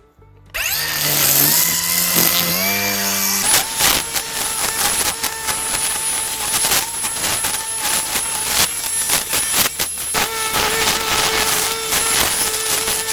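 DeWalt DCST970 60-volt brushless string trimmer starting about half a second in, its motor whine climbing in pitch as it spins up, then running with a dense stream of snaps and ticks as the line hits grass and brush.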